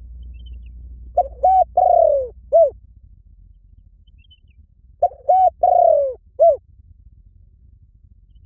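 Spotted dove cooing: two phrases of four notes each, about four seconds apart. In each, two short coos are followed by a longer coo that falls in pitch, then a last short coo.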